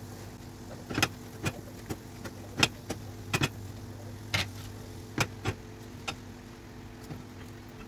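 Chopped chard leaves handled into a frying pan and stirred with a spatula, with a string of sharp, irregular knocks and taps against the pan, over a steady low hum.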